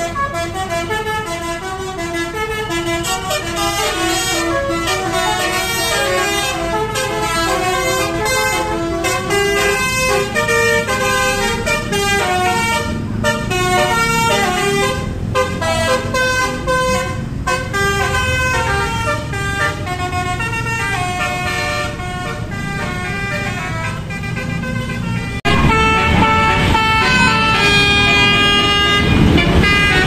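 Multi-tone telolet bus horn (Basuri type) playing a quick melody of stepped notes over engine and traffic noise. About 25 seconds in the sound cuts to a louder stretch of other horn tones and traffic.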